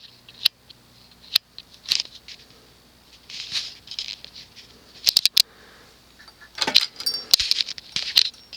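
Scattered sharp clicks with short bursts of light metallic jingling and rustling, the kind made by handling small hardware such as a fan's pull chains.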